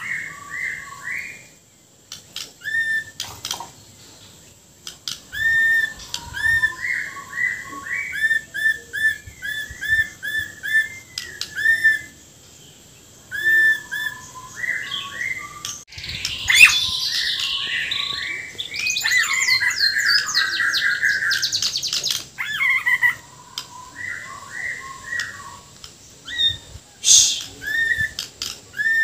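Bornean white-rumped shama (murai batu Borneo) singing in its cage: a run of short, quick whistled phrases repeated over and over. About halfway through comes a louder, denser, harsher passage of rough mimicked notes, then the whistled phrases resume.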